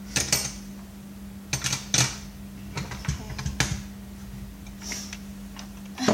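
Hand tools clicking and clattering as they are set down and put away, in irregular sharp knocks with a busier patch near the middle. A steady low hum runs underneath.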